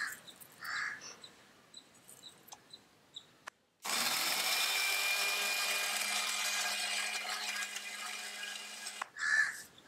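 Electric mixer grinder running once for about five seconds, grinding garlic and ginger with salt into a paste. The motor starts about four seconds in, spins up quickly to a steady whir and stops abruptly near the end. A few soft clicks from the jar and lid come before it.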